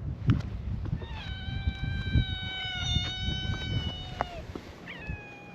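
Stray cat meowing: one long, drawn-out meow of about three seconds, then another meow starts near the end.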